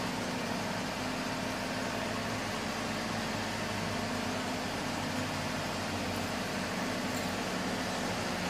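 Steady background hiss with a faint low hum; the spooning of the powder makes no distinct sound.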